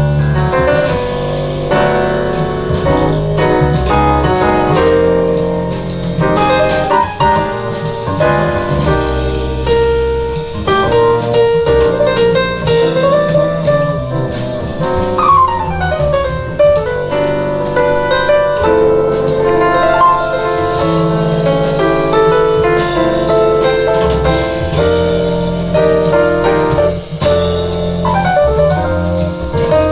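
Recorded jazz with piano playing through a pair of two-way ported floor-standing loudspeakers. The music runs at a steady level throughout.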